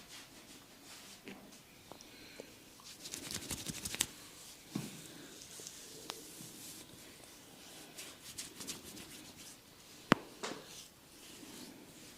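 Hands massaging: fingers rubbing and scratching through hair and over skin in quick crackly runs, about three seconds in and again about eight seconds in, with one sharp click about ten seconds in.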